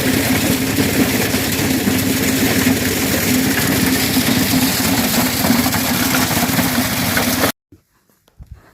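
Engine-driven corn sheller running, a loud, steady mechanical din with a constant engine hum, cutting off suddenly near the end.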